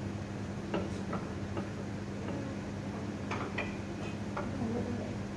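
Light hammer taps on the steel flange at the base of an electric motor: about nine short, irregular metallic knocks, one or two with a brief ring. A steady low hum runs underneath.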